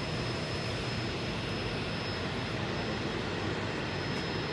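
Light aircraft's piston engine and propeller running steadily, a Cessna 172 on the ramp.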